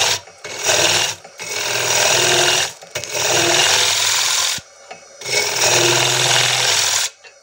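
Hollowing tool cutting the end grain of a fairly dry magnolia blank spinning on a wood lathe: a rough scraping cut in several passes of one to two seconds with short breaks between, over the steady hum of the lathe motor. The cutting stops shortly before the end.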